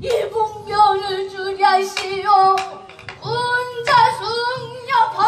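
A woman singing a slow Korean song with long held, wavering notes, her pitch stepping up about three seconds in.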